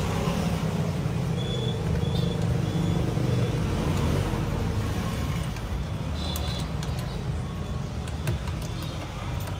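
Steady low background rumble, with a few faint clicks and taps of the copier fuser unit's metal and plastic parts being handled and fitted.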